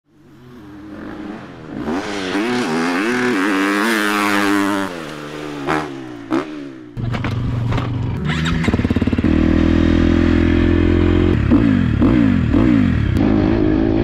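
2023 GasGas MC 250F motocross bike's engine revving up and down, fading in over the first two seconds. About seven seconds in it cuts abruptly to a louder, steady low running, with rising and falling revs again near the end.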